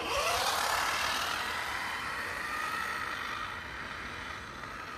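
Electric motor whine of an HPI WR8 Flux RC rally car, starting suddenly with a quick rise in pitch, then holding steady with a hiss and slowly fading.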